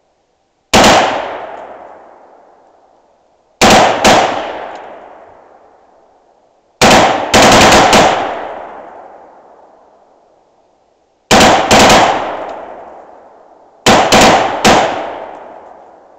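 AR-15-style rifle firing about a dozen shots in short strings of one to four, each string trailing off in a long echo that dies away over a couple of seconds.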